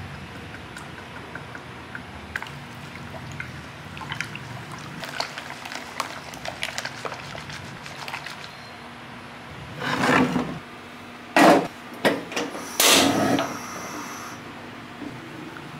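Wire whisk ticking and scraping lightly against a ceramic saucepan as flour, eggs and milk are beaten together. About ten seconds in come several loud knocks and clatters as the pot is set onto a gas stove's metal grate.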